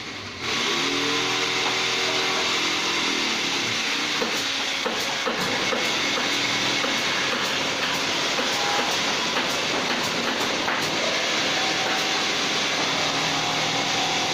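Hand-cranked wooden rotisserie spit turning over an open wood fire, with a steady rubbing, grinding noise and scattered crackles. A short engine-like drone sits under it in the first few seconds.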